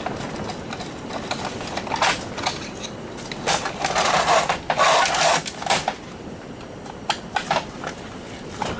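Hand tools and metal parts clicking and clattering as a garage door opener is taken apart for scrap, with a denser, louder run of rattling about halfway through and scattered single clicks after.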